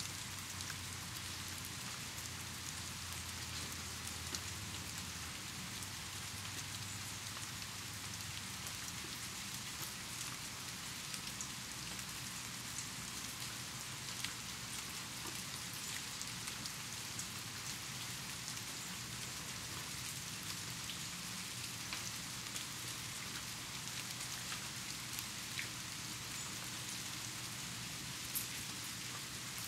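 Steady rain falling, an even hiss with many scattered individual drops ticking, and one louder drop near the end.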